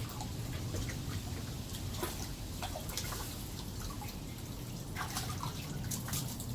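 Water feature trickling steadily, with irregular drips and small splashes as the water is disturbed.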